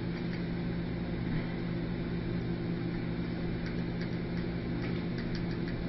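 Steady low mechanical hum, with a few faint short clicks in the second half.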